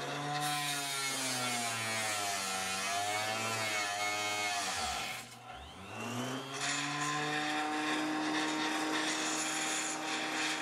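Small 4-inch benchtop table saw cutting an FR4 circuit board: the motor whines with a grinding hiss. Its pitch sags as the board is fed into the blade, drops almost to a stop about five seconds in, then speeds back up and runs steady. The saw is bogging on fibreglass board that is too tough for it to cut cleanly.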